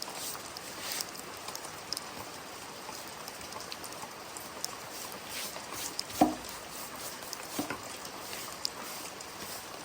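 Steady rain falling, an even hiss with scattered drips and ticks. A single louder knock about six seconds in.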